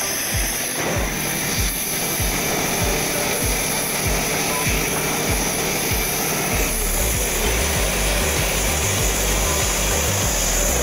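Background music with a steady beat of about three thumps a second. About two-thirds of the way in, a steady low rumble joins it.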